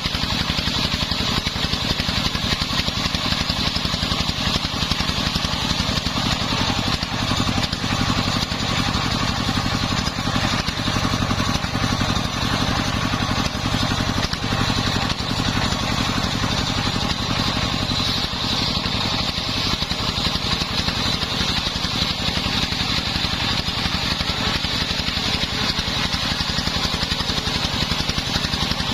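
Engine of a homemade circular sawmill running steadily, with a rapid, even beat, as its saw works through sengon wood. A high, steady whine sits over it and grows a little stronger midway.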